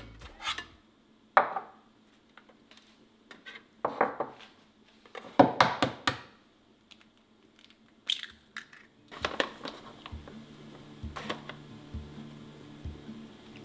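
Kitchen handling sounds: scattered clinks and knocks of a small bowl and a metal spoon against a stainless steel tray, with the crinkle of a plastic bag of frying powder. Soft music with a steady beat comes in about nine seconds in.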